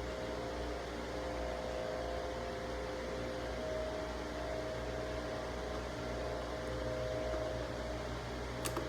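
Steady mechanical hum of room equipment with a few held tones, like a running fan. A short metallic click sounds near the end.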